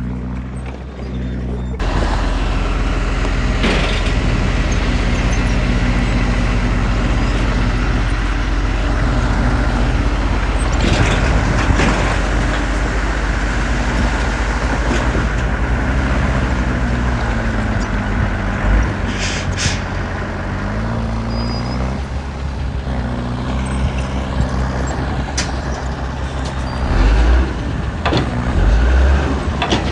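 Heavy diesel machinery engine running hard, its pitch rising and falling as the revs change, with a few sharp knocks along the way.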